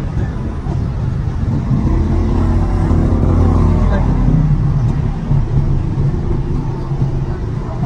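A road vehicle's engine passes nearby, a low rumble that swells from about two seconds in and eases off after about four seconds. Under it is the steady hum of cordless hair clippers cutting hair.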